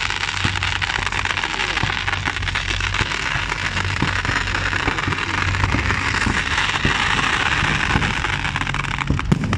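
Fireworks fizzing and crackling: a dense, continuous hiss of many small crackles, with a few sharper pops near the end and a steady low hum underneath.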